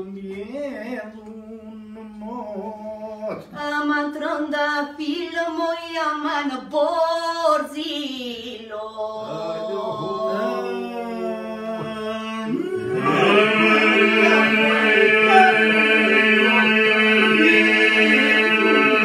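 Unaccompanied Albanian polyphonic folk singing: several voices hold a steady low drone while a single voice leads the melody above it. About 13 seconds in, more voices join and the singing grows louder and fuller.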